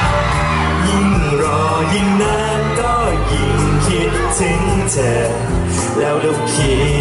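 Live band performing a Thai pop song, loud and continuous, with steady bass and drums under a melody line that bends in pitch.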